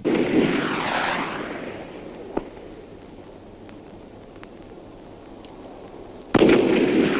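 Fireworks salute: a big boom right at the start and another about six seconds in, each followed by a rushing hiss that dies away over a second or two. A single sharp crack comes about two and a half seconds in.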